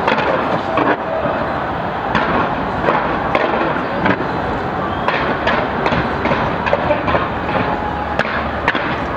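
Fireworks going off: a rapid, irregular run of sharp bangs and crackles over a steady crowd din.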